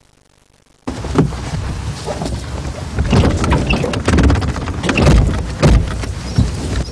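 A small car driving along a street, heard as a dense rumble of engine and road noise with frequent knocks and rattles. It starts abruptly about a second in.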